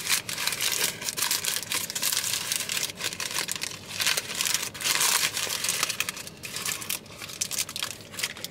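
A Gideon's Bakehouse cookie's pleated paper wrapper crinkling as it is unwrapped and handled, in irregular rustles and crackles.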